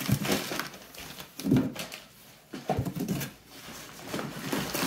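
Hands rummaging inside a cardboard shipping box: cardboard flaps scraping and the packed contents rustling and knocking in a few short, uneven spells.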